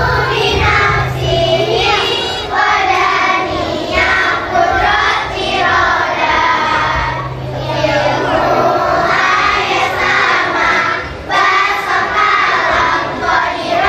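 A children's choir of girls singing together in unison, phrase after phrase with brief breaks between them.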